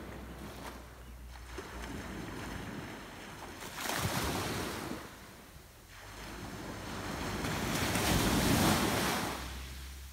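Small waves breaking and washing up the shore, surging twice, about four seconds in and more strongly near the end, with a low wind rumble on the microphone underneath.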